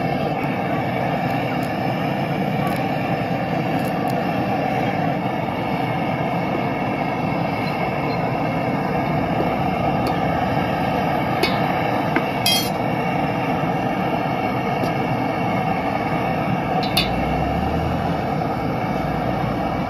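Steady rushing of a stove burner's flame under a brass pot of boiling chai. A few sharp metal clinks of a steel ladle and tongs against the brass pot come a little past halfway and near the end, one of them ringing briefly.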